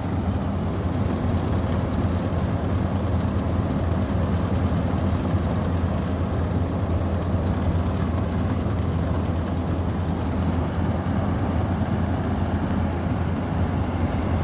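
Combine harvester running steadily while harvesting wheat: an even, deep engine drone with the hum of the threshing machinery over it.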